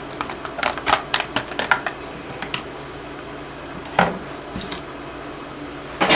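Light clicks and ticks of a diecast excavator model and its plastic packaging being handled: a quick string of them over the first two and a half seconds, then a sharper click about four seconds in and another near the end.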